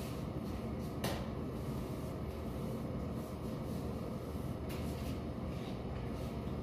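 Steady low hum of a small tiled room, with one sharp click about a second in.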